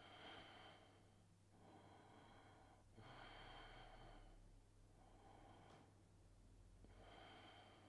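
Faint, slow breathing: a run of soft breaths, each about a second long, from a person holding a deep yoga stretch, over a low steady hum.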